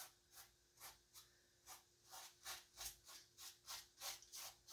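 Paintbrush with acrylic paint stroking back and forth across a stretched canvas: faint, quick scratchy swishes, about three a second.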